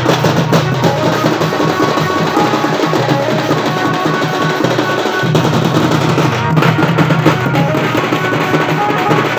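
Sambalpuri dalkhai dance music: dense, fast drumming with a drum roll, a steady low drone, and a melody of short held high notes over it. The low drone drops out for a moment about five seconds in.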